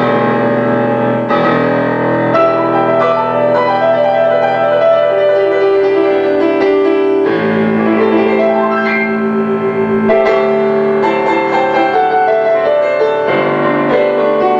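Yamaha Clavinova digital piano being played: a melody over chords, some notes held steady for several seconds without fading.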